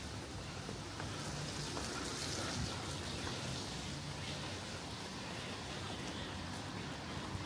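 Rain falling: a steady hiss with a few faint drips.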